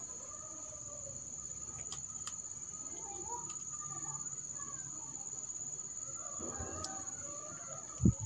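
Quiet background with a steady high-pitched insect drone and faint distant bird calls, with a few light clicks and a short knock near the end.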